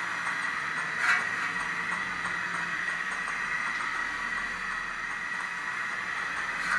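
HO-scale model railway with a model steam locomotive on its turntable: a steady hiss with a faint high whine, and one sharp click about a second in.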